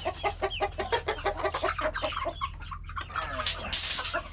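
A flock of chickens clucking, a steady run of short calls several a second, with a short burst of noise about three-quarters of the way through.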